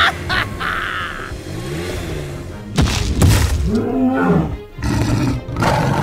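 Cartoon background music, with a loud creature roar sound effect breaking in about three seconds in and lasting roughly two seconds. A couple of brief high squeaks sound at the very start.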